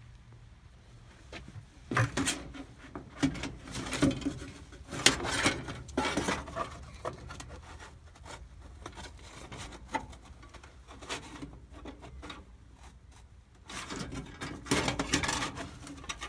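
Sheet metal of an air handler's electric heat kit being handled and fitted into the cabinet by hand: scraping and rubbing of metal on metal with sharp knocks and clicks, in two busy spells with a quieter stretch between.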